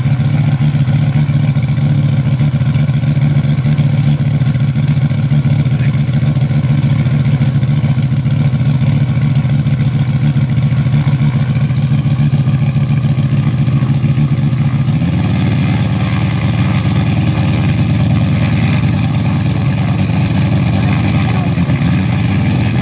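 Moki 400 radial engine of a large-scale model aeroplane running steadily at low speed on the ground. Its speed steps up about fifteen seconds in and shifts again near the end.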